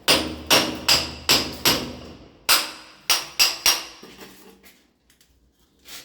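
Hammer blows with a ringing, metallic tone: five strikes in quick succession about every 0.4 s, a short pause, then four more, followed by a few faint taps and one last blow near the end.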